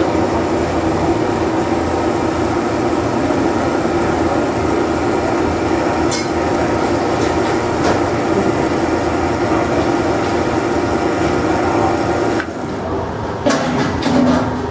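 Expobar espresso machine running with a loud, steady mechanical hum. It cuts off suddenly near the end and is followed by a few knocks and clatter.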